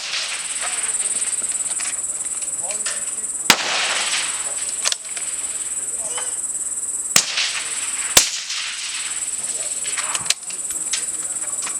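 Several suppressed centre-fire rifle shots a few seconds apart, each a sharp crack with a short echo, over the steady high-pitched buzz of insects.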